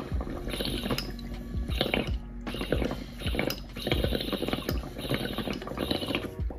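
Water bubbling and gurgling through a glass dab rig as a hit is drawn through it, in repeated surges about a second apart.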